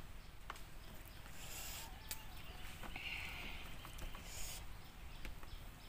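Someone eating by hand: chewing and mouth clicks, with a few short rustles of food being picked up.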